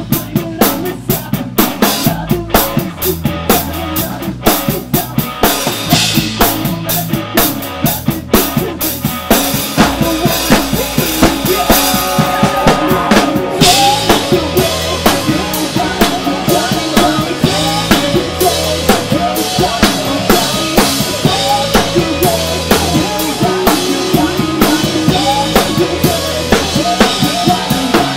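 Rock band playing, with a drum kit up close: driving bass drum, snare and cymbal hits over electric bass and electric guitar. About halfway through the cymbals open up into a steady bright wash.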